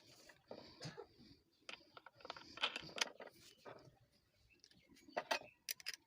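Scattered light clicks and clinks of small hard parts being handled, with no grinder running.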